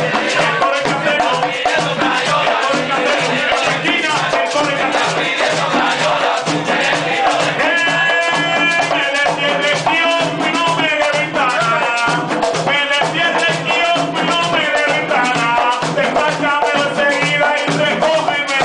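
Live Puerto Rican plena: several panderetas (hand frame drums) beating a steady, driving rhythm, with a man singing over them from about seven seconds in.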